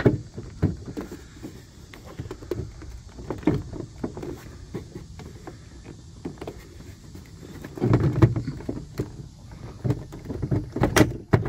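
Irregular knocks, creaks and rattles of a Ram 2500's factory side mirror being wiggled by hand against the door, with a louder spell about eight seconds in and a few sharp clicks near the end. The mirror stays stuck, held in its slot by a metal clip.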